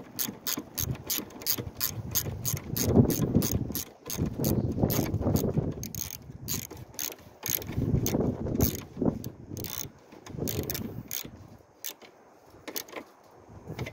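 Rapid, regular clicking of a car's starter solenoid, about four or five clicks a second, with no engine cranking: the chatter typical of a battery too weak to turn the starter over. The clicks thin out near the end, and bursts of muffled rustle from the phone rubbing against a sleeve come and go.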